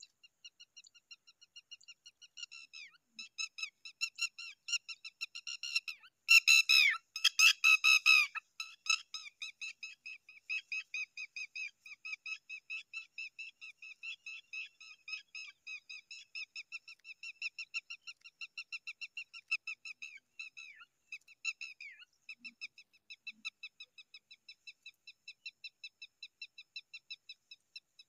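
Zitting cisticola nestling begging: a steady, fast run of short high chirps, a few each second. They get louder and harsher for a couple of seconds about six seconds in.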